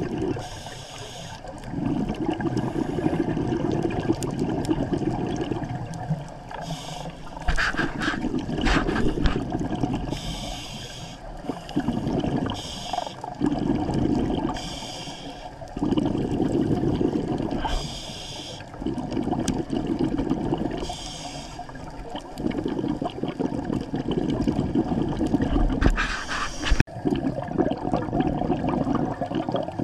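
Scuba diver breathing through a regulator underwater. Each breath is a short hissing inhale followed by a longer burst of rumbling exhaust bubbles, repeating about every four seconds. A single sharp click comes near the end.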